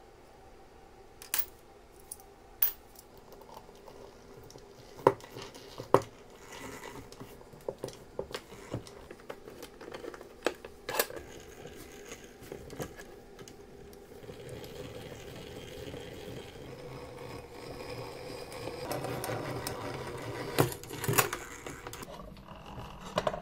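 Scattered sharp metallic clicks and knocks, then about halfway through a drill press starts running while a twist bit drills into a 4 mm steel plate held in its vise. The cutting grows louder with a few sharp clicks before the motor stops shortly before the end.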